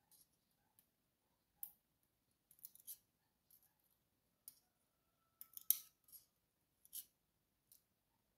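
Faint, scattered small metallic clicks of steel tweezers against the brass lock cylinder housing and the plastic pin tray as the springs are picked out, the loudest about two-thirds of the way through.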